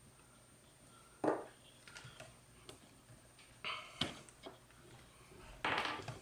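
Faint handling sounds: a sharp click about a second in, then a few short rustles and taps as small plastic adhesive bottles are handled and hands work at the bullhorn's battery-door latch.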